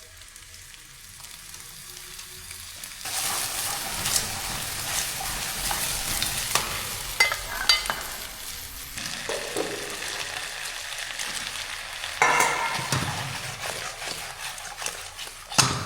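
Pork ribs frying in hot oil with scallion, ginger and garlic, sizzling as they are stirred. The sizzle rises sharply about three seconds in and surges again later, with a few sharp clicks and a knock near the end.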